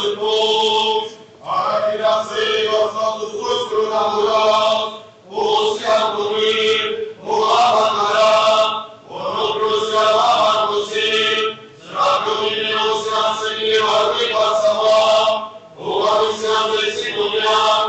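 Liturgical chanting of an Armenian church service, sung in phrases a few seconds long with short breaks between them.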